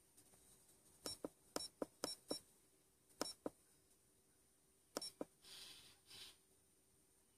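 Buttons on a RigExpert AA-54 handheld antenna analyser being pressed: short click-beeps in quick pairs, five pairs over about five seconds, followed by a brief soft rustle.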